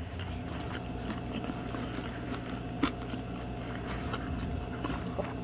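A person chewing a mouthful of spicy chicken wrap, breaded chicken nuggets in a flour tortilla, with soft irregular crunching and one sharper click about three seconds in, over a steady low hum.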